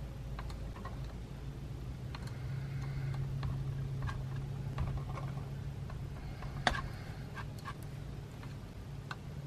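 Plastic measuring spoon stirring thick glue mixture in a plastic beaker, its tip clicking and tapping against the beaker's sides at irregular intervals, with one louder knock about two-thirds of the way through. A steady low hum runs underneath.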